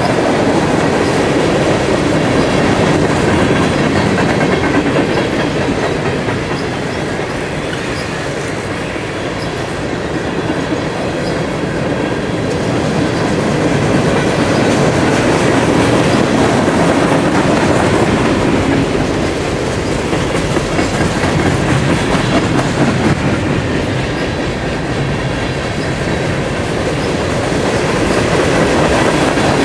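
Freight cars of a long mixed freight train rolling past close by: a steady rumble and clatter of steel wheels on rail. It eases off and swells again a couple of times as different cars go by.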